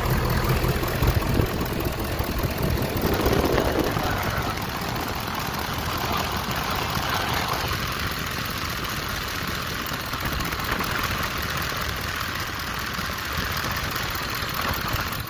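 Ford 6.7 L Power Stroke V8 turbodiesel idling steadily, heard up close in the engine bay, as it runs to be checked for fuel leaks after a CP4 injection-pump bypass kit install.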